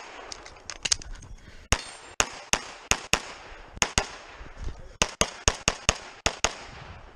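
Pistol shots fired in fast strings during a USPSA stage run, about twenty in all. Many come in quick pairs a fraction of a second apart, each with a short echo, and a few are fainter.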